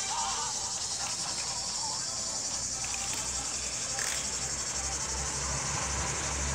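Insects chirring steadily in a high, fine-pulsed buzz, with a low rumble coming in over the second half.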